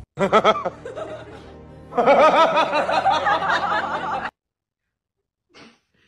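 Short comic sound-effect music with a warbling, laugh-like voice, cutting off abruptly about four seconds in and followed by silence.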